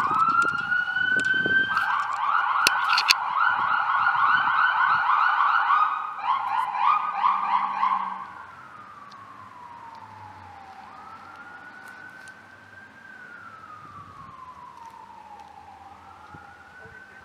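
Police vehicle's electronic siren close by: a rising wail that switches to a fast yelp, then cuts off about eight seconds in. After that a fainter siren wails slowly, rising and falling.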